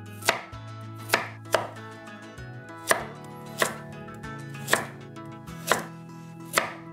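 Chef's knife chopping carrots on a wooden cutting board: about eight separate chops at an uneven pace, each a sharp knock of the blade going through the carrot onto the wood.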